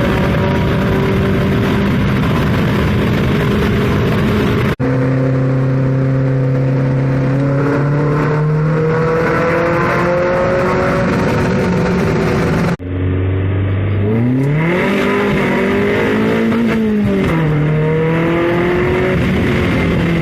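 Lotus Elise S's Rover K-series four-cylinder engine running through a Janspeed aftermarket exhaust. It holds steady revs, then climbs slowly. After an abrupt cut it idles low, revs up quickly, eases back and holds a steady note. The sound changes suddenly twice, about five and thirteen seconds in.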